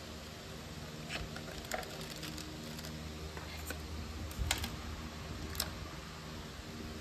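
Scattered light plastic clicks and clacks of clear polycarbonate keycaps being handled and pressed onto a mechanical keyboard's switches, about half a dozen in all, the loudest a little past the middle, over a steady low hum.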